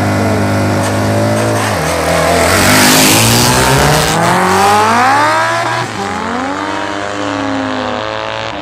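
BMW boxer-twin sprint motorcycle held at high revs on the start line, then launching hard and accelerating away. Its engine note rises through the gears, dropping at each shift, about three times, and fades as the bike pulls into the distance.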